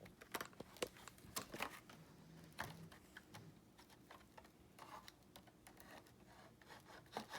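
Faint scattered clicks and crinkling of memory-stick packaging being worked open by hand.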